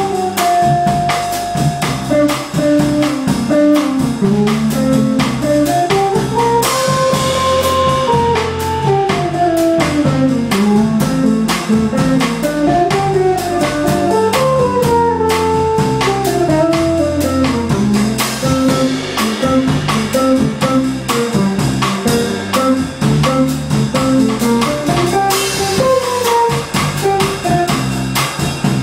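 Jazz bossa nova played by an archtop electric guitar, electric bass and drum kit. The melody climbs and falls in long scalar runs over a walking low line and light cymbal and drum playing.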